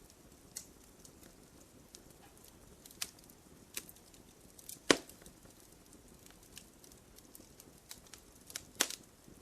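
Wood fire crackling: scattered sharp pops and snaps over a low steady hiss, with two louder pops about halfway through and near the end.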